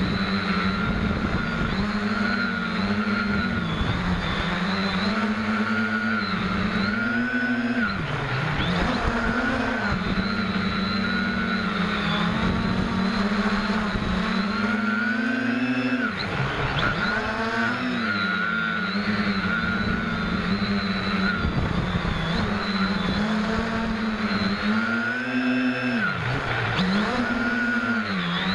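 SK450KK2 quadcopter's electric motors and propellers buzzing, heard up close from its onboard camera. The pitch wavers up and down with throttle, and a few times it drops sharply and climbs straight back as the throttle is chopped and reapplied.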